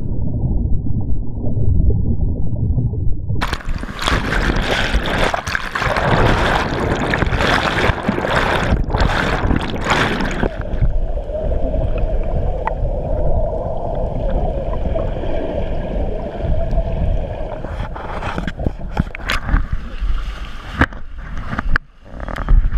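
Whitewater rapid washing over and around a raft, heard partly underwater: a muffled, low rushing at first, breaking about three and a half seconds in into several seconds of loud splashing, muffled again from about ten seconds, then sharp splashes near the end as the raft comes out of the water.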